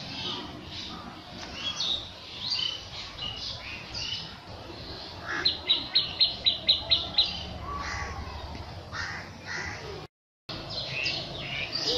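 Several birds chirping and calling, with a quick run of about nine sharp high notes in the middle and a few harsher calls later on.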